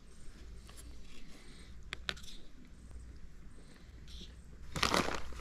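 A fork scraping and tapping on a paper plate while scooping scrambled eggs, a scatter of small light clicks. About five seconds in comes a short, louder rustle.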